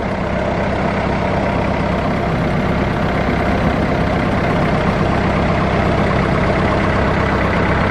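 A wooden fishing boat's engine running steadily under way, with water rushing and splashing along the hull.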